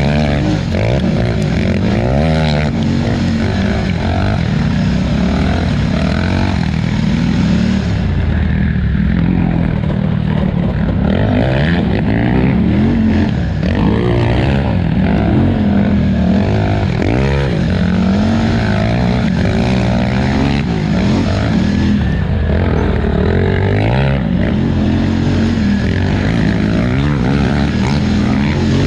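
Polaris Scrambler 1000 XP ATV's twin-cylinder engine running hard throughout, its pitch rising and falling every second or two as the throttle is worked over rough terrain.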